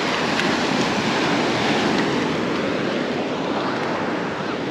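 Ocean surf breaking and washing up the beach, a steady rush that swells over the first couple of seconds and then eases.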